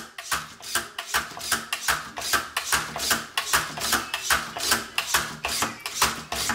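Plastic lever of a Fantastic Gymnastics toy pumped over and over to swing the gymnast figure around its high bar, giving an even run of sharp plastic clicks, about four a second.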